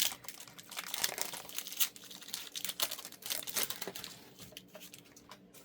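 Foil Pokémon booster pack wrapper crinkling as it is handled and torn open: a rapid, dense crackle that thins out about four seconds in.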